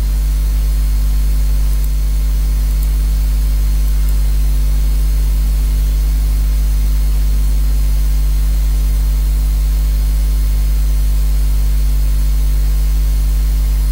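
Steady low electrical mains hum with an even hiss, unchanging throughout.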